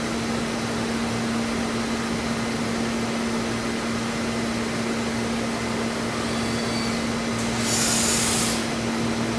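Studer S33 CNC universal cylindrical grinder running a taper grinding cycle: a steady hum under an even hiss from the spinning wheel and coolant. A brief louder hiss comes about eight seconds in.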